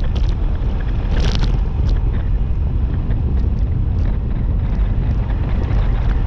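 Steady wind buffeting the microphone of a moving rider: a loud, even low rumble with a few faint ticks.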